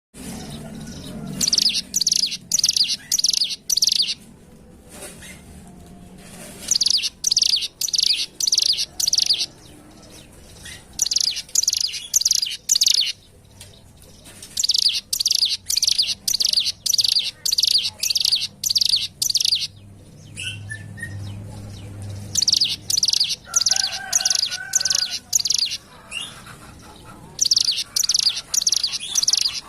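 Ciblek gunung (a prinia) singing: repeated phrases of sharp, high chirping notes, each phrase a quick run of about two seconds, separated by short pauses.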